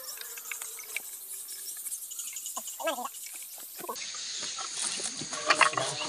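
Quiet outdoor ambience: a faint high steady hiss, scattered light clicks and rustles, and a few short pitched calls about halfway through and near the end.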